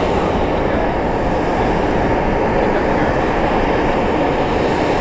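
Airbus A350-941's Rolls-Royce Trent XWB engines at takeoff power as the airliner climbs away: a loud, steady jet roar with a deep rumble.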